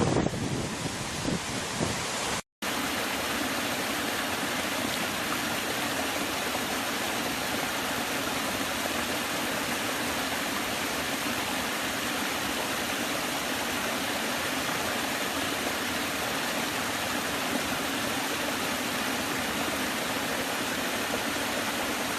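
Steady rush of a waterfall: an even roar of falling water, with no rhythm or tones. It drops out completely for a moment about two and a half seconds in, then resumes just as steady.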